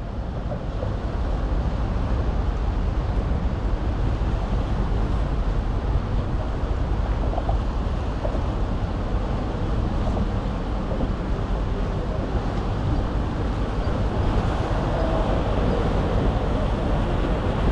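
Steady running noise of a lake passenger boat underway, with wind buffeting the microphone and water rushing past the hull.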